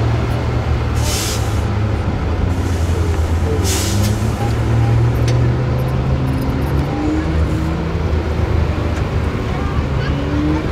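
Diesel engine of an 8x8 off-road trial truck running hard under load as it climbs a steep slope, its pitch shifting a couple of times. Two short hisses of air about one and four seconds in.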